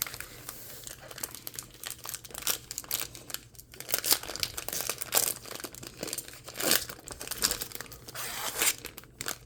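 Foil trading-card pack wrappers and cards being handled and torn open: irregular crackling and rustling, with louder crackles from about four seconds in.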